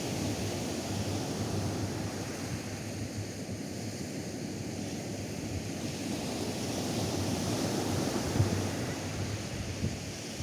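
Atlantic surf washing onto a sand beach, a steady hiss that eases and swells again, with wind buffeting the microphone in low gusts.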